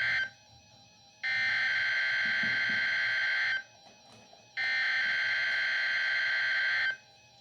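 NOAA Weather Radio EAS header data bursts played through a First Alert WR-100 weather radio's speaker: harsh, buzzy digital tone bursts, the tail of one at the start, then two more each about two and a half seconds long with a gap of about a second between. These coded bursts mark the start of an alert transmission.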